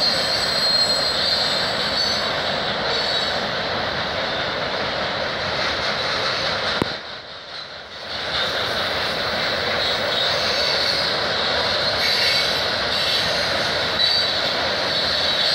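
CN freight train rolling across a rail overpass: steady noise of steel wheels on rail with a thin high wheel squeal above it. The sound drops briefly about halfway through, then returns.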